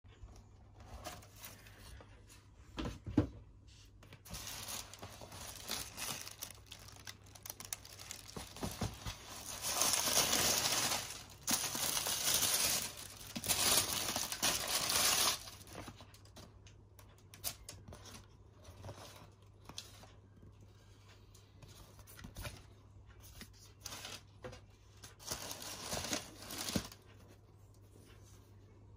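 Tissue paper and plastic wrapping rustling and crinkling as a cardboard sneaker box is unpacked by hand. The rustling is loudest in a long stretch from about ten to fifteen seconds in, with a sharp knock of the box about three seconds in and shorter crinkles after.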